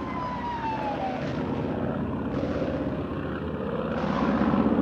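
Propeller aircraft engines droning steadily, louder near the end, with a single falling tone in the first second.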